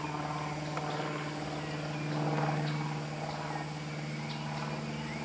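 Steady low engine drone, with faint short chirps now and then.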